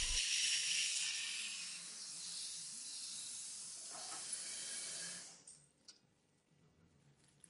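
Dental suction hissing as it draws off irrigation fluid from the opened tooth. It fades gradually and stops about five seconds in.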